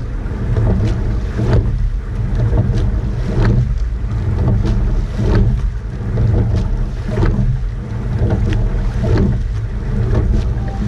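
Rowing eight under way: a clack from the oars in their oarlocks about every two seconds, one per stroke, over water rushing past the hull and heavy wind rumble on the microphone.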